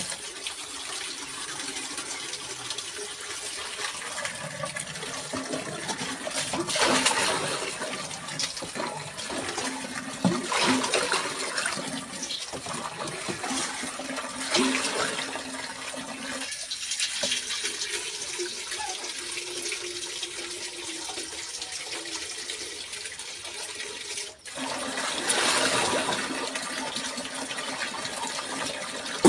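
Water poured from a steel mug into plastic washtubs, splashing loudly in several surges over a steady hiss of water.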